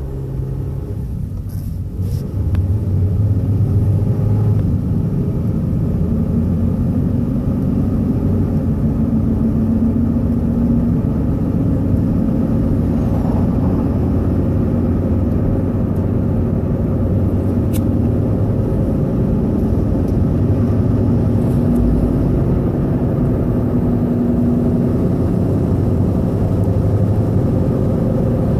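Car engine running with a loud, steady drone that steps up in level about two seconds in. This is the loud noise the owner is asking about, and he also reports the rpm bouncing.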